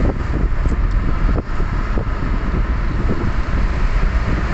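Steady low rumble of a moving car heard inside its cabin: engine and road noise.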